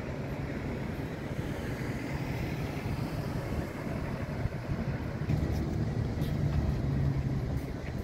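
Low, steady engine rumble from a motor vehicle, growing a little louder in the second half.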